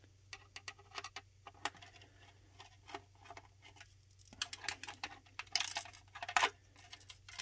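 Small plastic clicks, taps and scrapes as a screwdriver tip pries at a circuit board's wire connectors inside a plastic enclosure, getting busier and louder a little past halfway.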